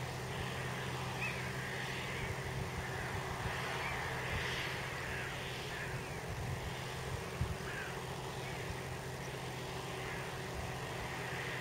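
Valtra T174's 7.4-litre six-cylinder diesel engine running steadily under load, pulling a five-furrow reversible plough through the soil. Crows caw repeatedly over the engine.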